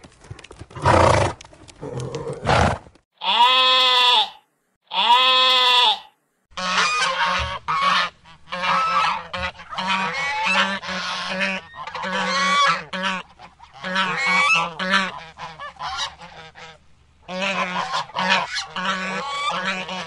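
A flock of geese honking, many short repeated calls overlapping, from about six seconds in. Before that come a few brief noisy bursts and then two long drawn-out animal calls that rise and fall in pitch.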